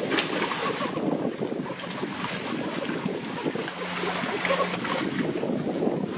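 Sea water sloshing around a person wading at a rocky shoreline, with a brief splash right at the start, under steady wind noise on the microphone. A faint low steady hum runs underneath.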